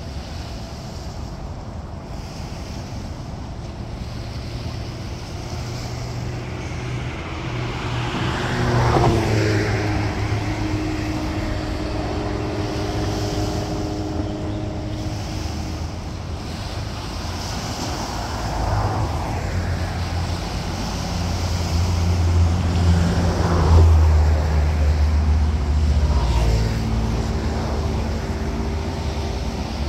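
Road traffic: vehicle engines running as vehicles pass, a low engine hum growing louder over the stretch, with noisy swells of passing vehicles about a third of the way in and twice more later.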